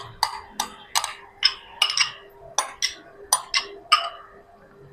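Spoon clinking against a bowl about a dozen times, roughly three sharp taps a second, as curd is scooped out and knocked off the spoon.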